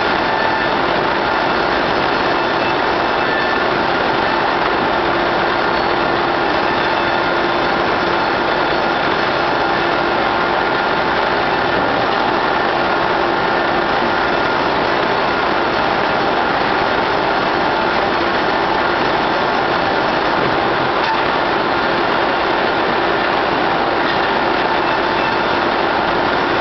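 Ustunkarli UYYM-120-3 horizontal band re-saw running while sawing timber fed through on its roller feed. It makes a constant mechanical din at an even level, with steady tones held through it.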